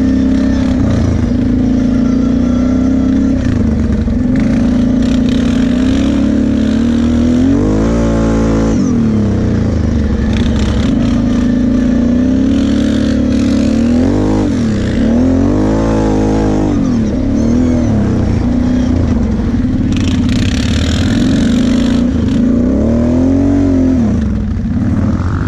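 Sport ATV engine running at riding speed, the revs rising and falling repeatedly under throttle: a sharp climb about eight seconds in, several quick swells in the middle, and another near the end.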